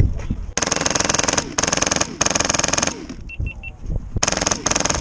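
Polar Star Fusion Engine MK46 airsoft light machine gun, running on compressed air, firing five rapid full-auto bursts: three longer ones in the first three seconds and two short ones near the end.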